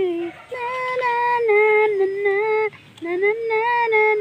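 A female voice singing a slow song in long held notes, with a short pause for breath about three seconds in.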